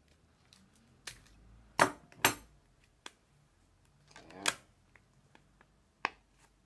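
Scissors cutting paper: a handful of sharp snips and clicks. The two loudest come about half a second apart around two seconds in, and another follows about four and a half seconds in.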